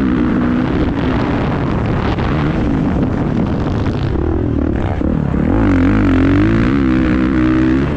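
Dirt bike engine revving up and dropping off again and again as it is ridden around a motocross track, heard from a helmet-mounted camera; the revs rise and fall more sharply in the second half.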